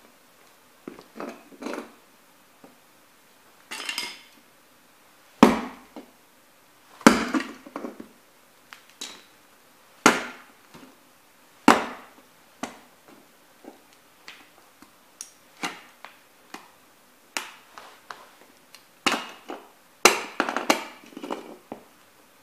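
Sneaker soles stomping and grinding on a small plastic-and-metal toy truck lying on a board: irregular sharp thuds and cracks of breaking plastic. The hardest stomps come about five, seven, ten and twelve seconds in, and a burst of crunching comes near the end.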